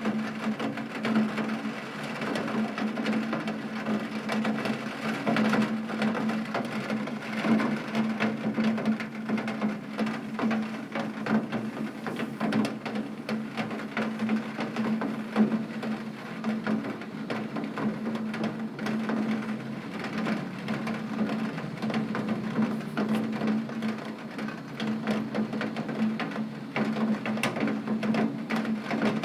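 Heavy rain beating on a window pane, a dense steady patter of countless small drop impacts, over a steady low hum.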